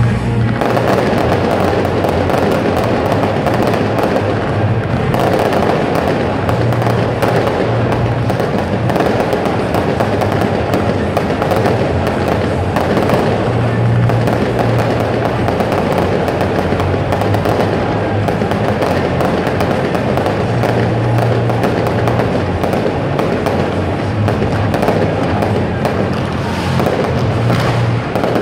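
Fireworks going off in a dense, continuous crackle with pops: ground fountains and aerial shells, with music playing underneath.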